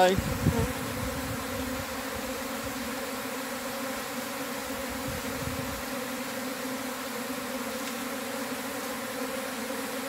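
Steady hum of a honeybee swarm, the buzz of thousands of wings as the settled swarm walks into a hive box. A low rumble lies under it and stops about six seconds in.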